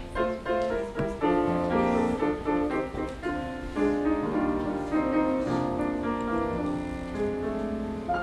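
Solo piano accompaniment playing the introduction to a musical theatre song: a melody over chords, each note struck and dying away.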